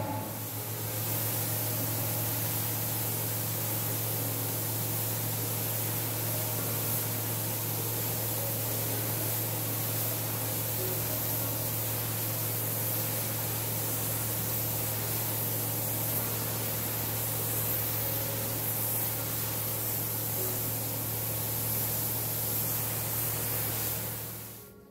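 Pressure washer jet blasting water onto a concrete floor: a steady loud hiss with a constant low hum underneath, cutting off just at the end.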